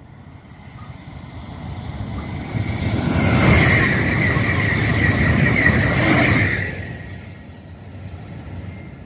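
High-speed electric passenger train passing at speed: a rushing noise swells over about three seconds, stays loud for about four seconds with a steady high whine over the rush, then drops away quickly as the train clears.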